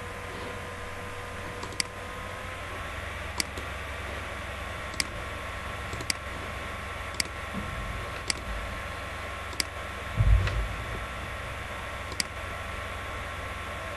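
Computer mouse clicking: about eight sharp single clicks at uneven intervals over a steady background hum and hiss. A dull low thump about ten seconds in.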